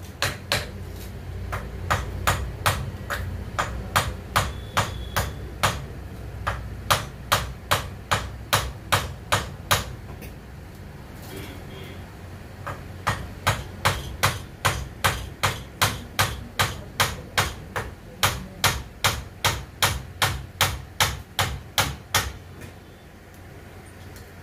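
Steady hammering on metal while a submersible pump motor is taken apart, about two sharp blows a second. The blows break off for a few seconds partway through, resume, and stop shortly before the end. A low steady hum runs underneath.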